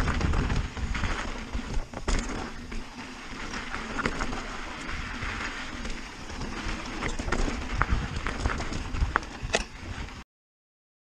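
Mountain bike riding fast over loose gravel and rocks: tyres crunching, the bike rattling with many sharp clicks and knocks, and wind buffeting the camera's microphone in a low rumble. The sound cuts off abruptly about ten seconds in.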